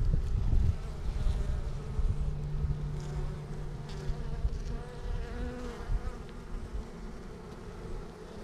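Honeybees buzzing around an opened hive during a frame inspection: a steady hum of many bees, with single bees' buzzing tones rising and fading as they fly past.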